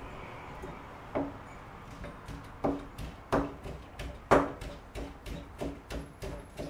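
Kitchen knife chopping shiso leaves on a plastic cutting board. There is a single knock about a second in, then a run of chopping strokes that quickens to about two a second.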